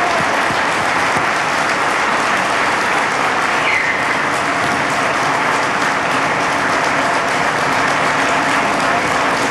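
A large crowd applauding steadily.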